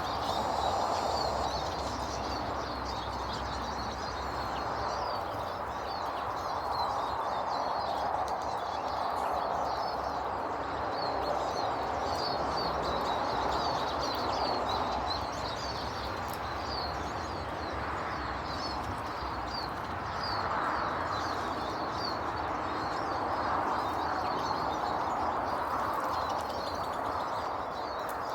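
Small birds chirping and twittering in many quick, high notes throughout, over a steady rushing noise that swells and fades slowly.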